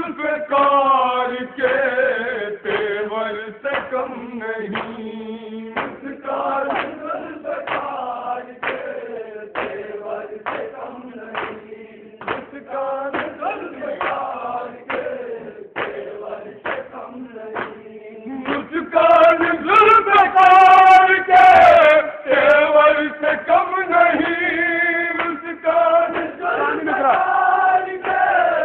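A group of men chanting a nauha, a Shia lament, in a melodic recitation. It grows louder about 19 seconds in.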